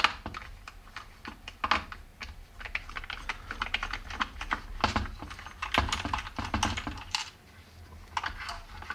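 Irregular small clicks and taps of a precision Phillips screwdriver turning small machine screws out of a plastic radio-controller case, along with the case being handled.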